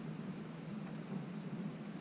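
Wind-driven rain beating on a window glass: a steady, even hiss with a low rumbling band underneath.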